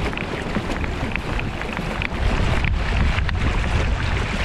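Wind buffeting the microphone over water rushing and splashing along the hull of a Pelican Catch Hydryve pedal-drive kayak being pedalled fast.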